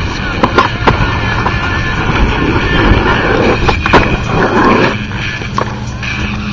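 Skateboard rolling, with a rough rumble of the wheels strongest in the middle and several sharp clacks of the board, a cluster near the start and one about four seconds in.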